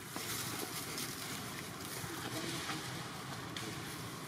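Steady outdoor background hiss with a few faint scattered ticks or rustles.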